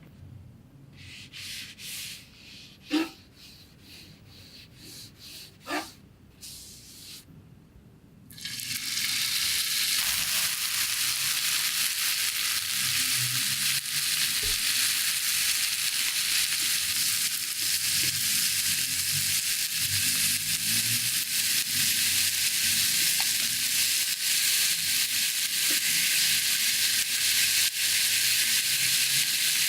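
Food sizzling on an electric hot plate. It starts suddenly about eight seconds in as food goes onto the hot oiled surface, then runs as a steady, loud hiss. It is preceded by a few light knocks of utensils.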